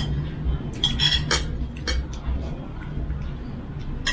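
Spoons and bowls clinking during a meal: several sharp clinks close together about a second in and another near the end, over a steady low hum.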